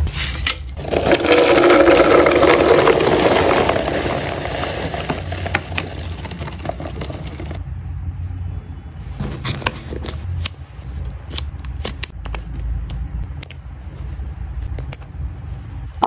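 Freeze-dried cat treat chunks poured into a clear plastic storage canister, making a dense, loud rattle for about six and a half seconds. It stops suddenly, then scattered light clicks and taps of plastic containers being handled follow.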